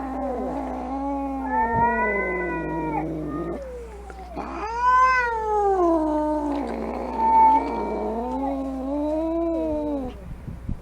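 Angry cat yowling: about three long, drawn-out yowls that waver and rise and fall in pitch, the threatening caterwaul of a cat ready to fight.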